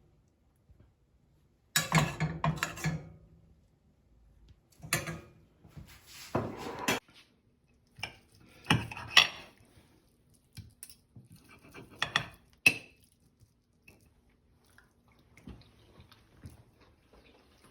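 Metal utensils scraping and clinking against a plate of pasta and chicken in lemon butter sauce, in short separate bursts that grow fainter and sparser over the last few seconds.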